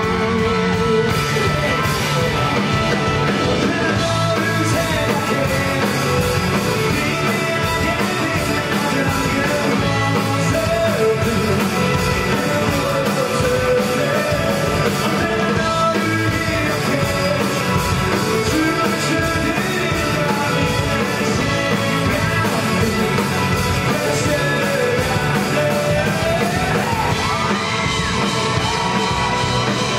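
Live rock band playing a song: electric bass, drums and guitars under a sung lead vocal, over a steady beat.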